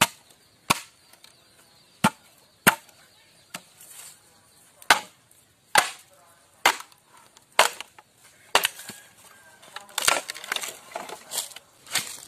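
A series of sharp knocks, about one a second and a dozen in all, with a quicker run of lighter knocks about ten seconds in.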